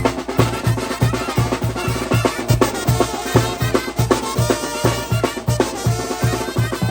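A band playing music over a steady bass-drum beat of about three beats a second, with drums prominent.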